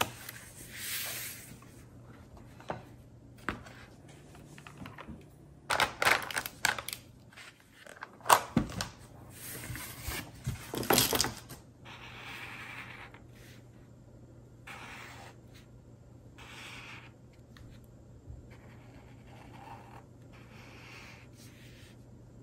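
A felt-tip marker rubbing across cardboard in short, separate strokes as lines are drawn, through the second half. Before that, a cluster of sharp knocks and clatters on the tabletop.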